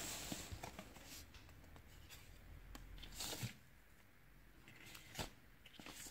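Faint handling noise: light rustles and small taps of hands lifting and working a piece of soft modelling clay at a table, with a brief rustle about three seconds in and a single sharp tick about five seconds in.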